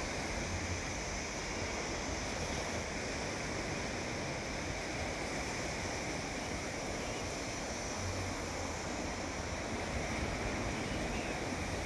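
Sea surf washing steadily along the shore, with wind rumbling on the microphone now and then.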